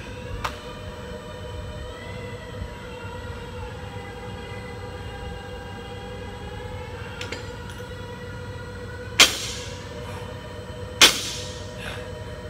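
Barbell loaded to 225 lb being deadlifted, its bumper plates hitting the rubber gym floor twice, about two seconds apart, each a sharp knock with a short ring. Before that a drawn-out, wavering high tone runs for several seconds.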